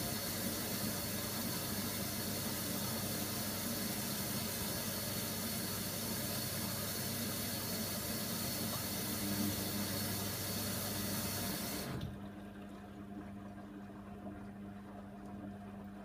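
Hoover Nextra washing machine filling with water for a rinse: a steady hiss of water running in through the inlet, cutting off suddenly about twelve seconds in as the fill valve shuts. A steady low hum carries on after.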